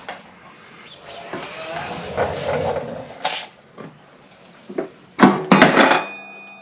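Metal tools and mower-deck parts scraping and knocking, then a loud clatter of metal clanks about five seconds in, with a struck metal piece left ringing afterwards.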